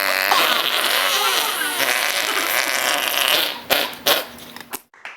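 Raspy fart noises mixed with boys' voices, followed by two sharp knocks about three and a half to four seconds in, after which it goes quieter.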